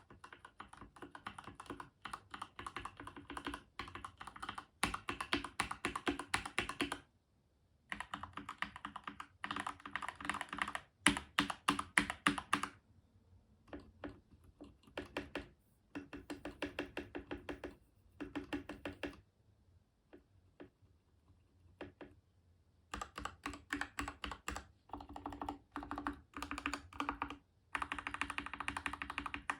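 Typing on a Keychron K10 mechanical keyboard with Gateron Red linear switches: rapid runs of keystrokes, broken by several short pauses.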